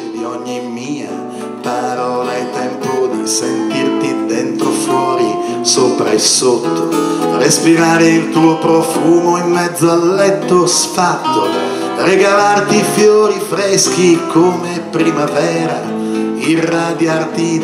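Live acoustic band playing an instrumental passage: acoustic guitars strummed and picked over accordion and upright double bass.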